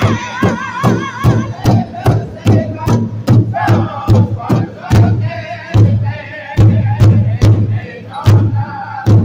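Powwow drum group singing in high, strained voices over a large hide-covered powwow drum, the drummers striking it in unison with a steady beat of about two and a half strokes a second.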